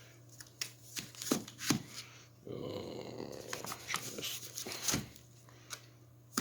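Handling noises from firework artillery shells and their packaging: a string of light knocks and taps, then about two seconds of rustling, another knock, and a sharp click at the end.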